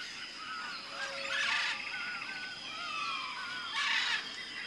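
Birds chirping: short curved whistled notes repeated every half second or so, over a faint outdoor background, with two brief swells of noise.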